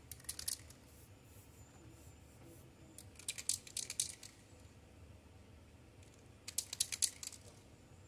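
Aerosol spray paint can being shaken, its mixing ball rattling in quick clicks, in three short bursts: near the start, about three seconds in, and again about six and a half seconds in.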